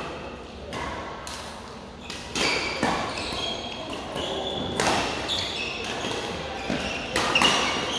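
Badminton rally: rackets striking the shuttlecock with sharp, irregularly spaced hits, echoing in a large hall, with short squeaks of court shoes on the floor between them.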